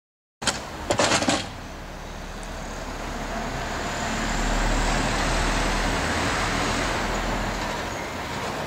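Distant vehicle rumble that swells to its loudest around the middle and then eases off, with a few sharp clicks about a second in.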